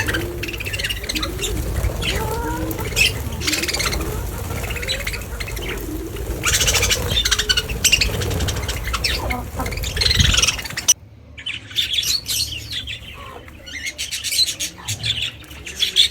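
Many birds calling and squawking at once, a dense colony chorus over a low rumble. About eleven seconds in it drops abruptly to quieter, scattered chirping.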